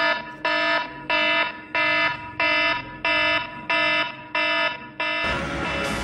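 An electronic alarm-like tone beeps eight times at an even pace, about one and a half beeps a second, each a buzzy tone rich in overtones. About five seconds in, music starts and carries on steadily.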